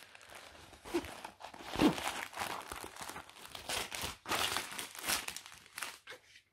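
Paper and plastic crinkling as a rolled diamond painting canvas, with its protective paper cover and bags of drills, is unrolled and pressed flat by hand. The rustles are irregular, loudest about two seconds in and in a cluster near five seconds.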